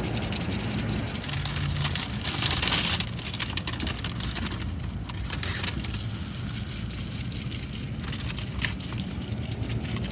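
Steak seasoning rattling in a shaker and pattering as fine granules onto a ribeye on butcher paper, a run of small ticks that is densest about two to three seconds in. A steady low vehicle hum sits underneath.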